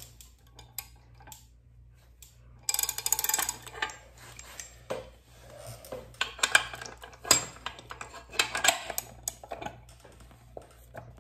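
Steel hand tools clinking and rattling as a socket and a small extension are handled. A burst of rattling comes about three seconds in, followed by scattered sharp metal clicks.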